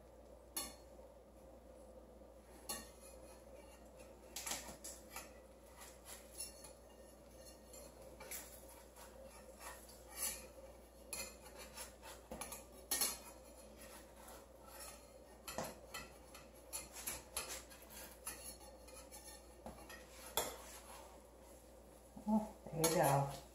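Metal spatula scraping and tapping against a copper frying pan as an omelet is worked, in short irregular clinks spread through the whole stretch.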